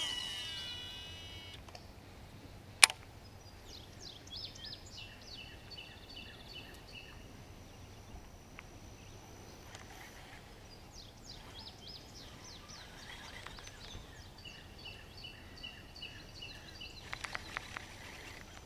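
Birds singing repeated high chirping phrases over quiet outdoor background noise. There is one very sharp click about three seconds in, the loudest sound here, and a quick run of clicks near the end.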